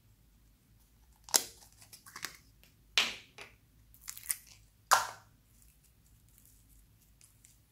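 A thin plastic slime container and the floam (foam-bead slime) inside it crackle and crunch under the fingers, in four sharp crunches with smaller crackles between them, the last about five seconds in.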